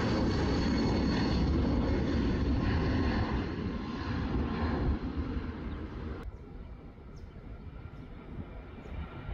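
Jet engines of an Airbus A320 climbing out after takeoff: a steady rumble that begins to fade about five seconds in. About six seconds in it cuts abruptly to a quieter, more distant jet sound.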